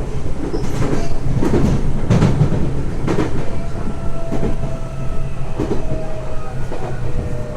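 Tokyo Metro 03 series train car heard from inside while running: a steady low rumble with irregular wheel knocks over the rail joints. A faint steady whine comes in about halfway through.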